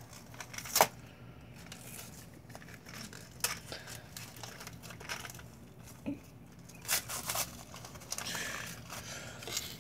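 Hands working a small plastic bubble wand: quiet scattered clicks and rustling, with a short stretch of crinkling about eight seconds in.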